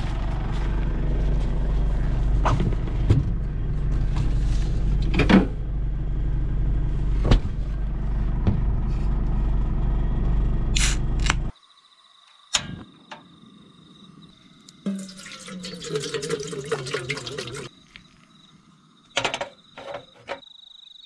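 A steady low rumble with a few clicks cuts off suddenly about eleven seconds in. After it comes a quiet night with a steady high cricket trill, over which water is poured into a metal pot for about three seconds, rising in pitch as the pot fills. A few short knocks follow near the end.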